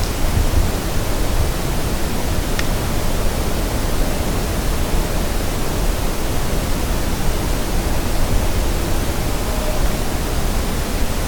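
Steady hiss of background noise, with a single faint tick about two and a half seconds in; no deer call stands out.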